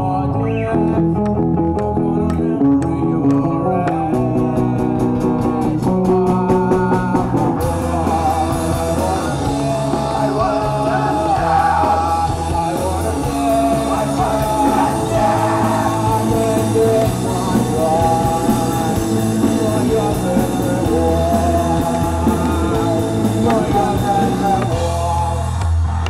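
Rock music from electric guitars, bass and drums, with a sung vocal in the later part. About eight seconds in, the sound changes abruptly, as if cut from one recording to another, and the live band's fuller sound takes over.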